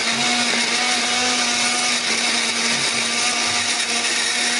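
Countertop blender running at a steady speed, grinding red chillies, shallots, garlic and other whole spices with a little water into a smooth paste.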